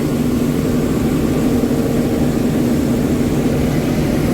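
Fast passenger boat's engines running steadily at cruising speed: a loud, even drone with a low hum.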